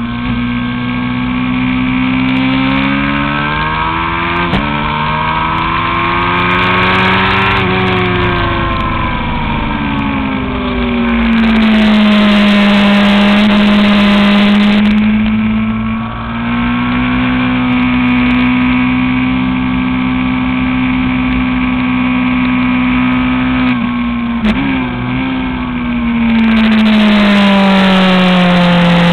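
Honda CBR1000RR Fireblade's inline-four engine under way on track, recorded close to the engine. The engine note climbs, drops abruptly about four and a half seconds in as a gear changes, then climbs again. It falls away, then runs fairly steady, easing down again near the end. A loud rushing hiss covers it twice, for a few seconds each time.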